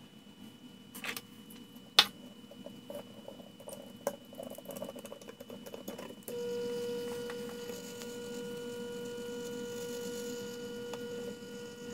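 Light handling clicks, with one sharp click about two seconds in, as the cork is hung on the rack's rod. About six seconds in, the small electric motor of a lure-turning rack switches on and hums steadily, turning the cork so its fresh epoxy coat cures evenly.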